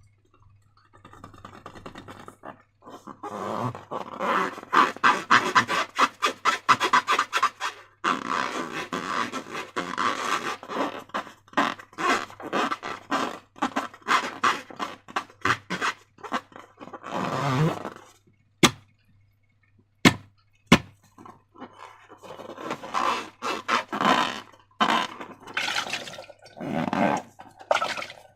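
Slime being squished and worked by hand, giving rapid sticky crackling and clicking. There is a quieter lull just past halfway, broken by three sharp clicks, before the squishing picks up again.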